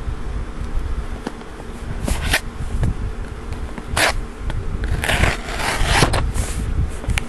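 Cardboard package being handled and opened: a few short scrapes and rustles, then a longer scraping rustle about five seconds in, over a steady low buzzing hum.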